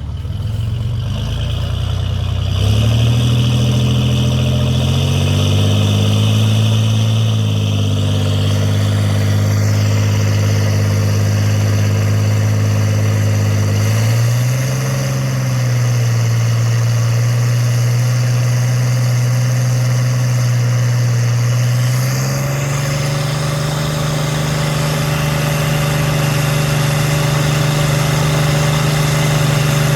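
Off-road rig's engine running at low revs, pitch stepping up and easing back a few times and held a little higher in the last third, as it crawls along a rocky trail.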